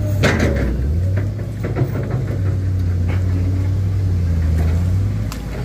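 Hydraulic excavator's diesel engine running with a steady low drone, its speed dipping briefly about half a second in and easing off near the end.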